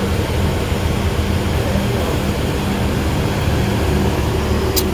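Diesel coach engine idling: a steady low hum and rumble, with a short click near the end.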